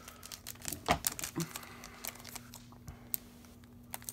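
Foil Pokémon booster-pack wrapper crinkling and trading cards being handled: a string of small sharp clicks and rustles, the sharpest about a second in.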